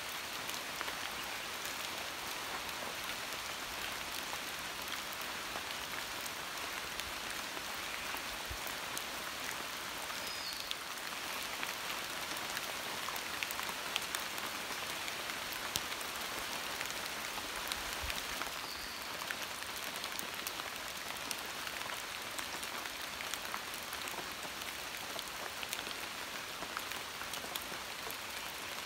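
Steady monsoon rain falling on forest leaves, a constant hiss scattered with many separate drops heard as sharp ticks.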